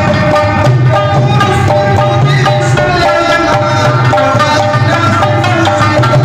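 Pashto rabab plucking a melody in many short notes, over a steady hand-drum rhythm on a mangay clay-pot drum.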